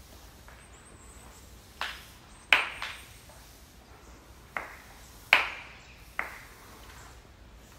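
Hand claps: six sharp claps in two groups of three, the middle clap of each group the loudest, each with a short ringing echo.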